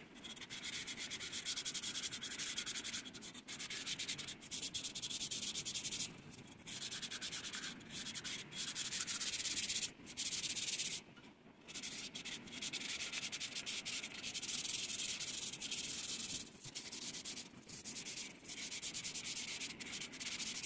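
Sandpaper rubbing over the outside of a brass bowl in quick back-and-forth strokes, a steady scratchy rasp in runs broken by several short pauses.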